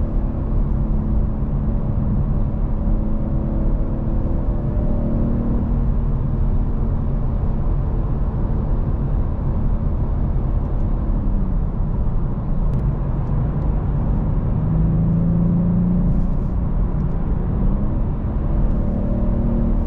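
BMW 840i's twin-turbo inline-six running steadily at highway cruise, heard from inside the cabin over a heavy low road and tyre rumble. Its pitch dips slightly about halfway through and again for a few seconds later on.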